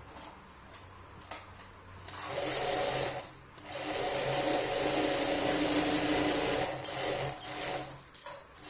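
Industrial sewing machine stitching a lace strip onto fabric, running in two stretches: a short run about two seconds in, a brief stop, then a longer steady run that stops near the end.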